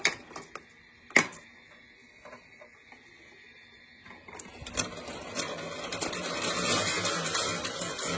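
Marbles clicking and rolling on a plastic marble-run track: a few sharp clicks in the first second or so, then from about four seconds in a growing rattle of many quick clicks as marbles roll around the plastic spiral funnel.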